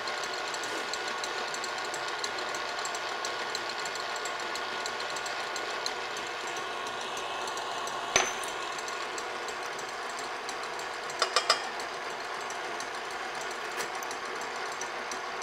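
Stand mixer running steadily at medium-high, whipping egg whites into meringue while sugar is added gradually. A sharp tap comes about eight seconds in, and three quick taps follow about three seconds later.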